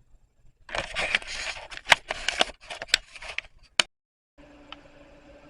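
Scraping and rustling with several sharp clicks, cutting off abruptly, followed by a faint steady hum.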